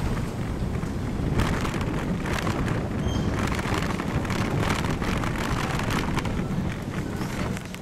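Wind noise on the microphone of a camera moving along on a bicycle, with a rapid, irregular clatter of small rattles and knocks through the middle.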